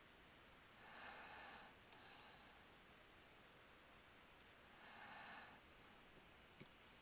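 Faint breathing into a headset microphone, two soft breaths about four seconds apart over near silence, with a small click near the end.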